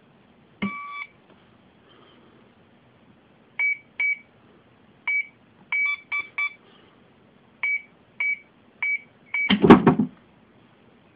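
GunVault handgun safe's keypad beeping: one longer tone about half a second in, then about ten short beeps at the same pitch as the code is keyed in, some in quick runs of three. Near the end a loud clunk and rattle, the safe's lid opening.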